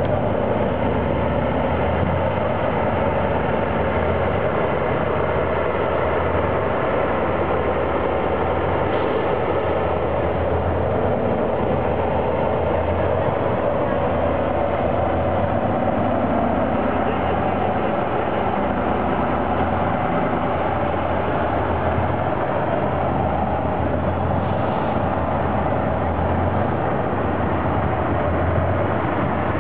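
Heavy off-road competition truck's engine running steadily at low revs.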